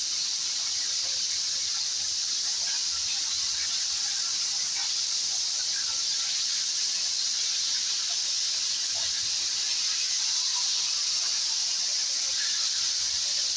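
Fish frying in hot oil in a pan: a steady, even sizzle.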